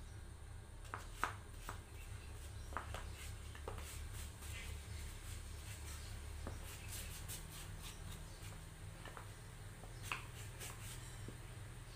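Paintbrush dabbed and stroked on small pieces of wood, with scattered light clicks and knocks as the pieces are handled, over a faint low steady hum.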